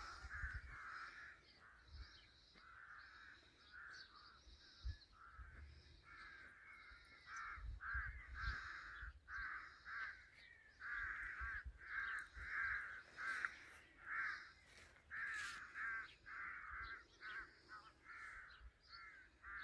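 A crow-like bird cawing over and over in a steady series of short calls, about one to two a second.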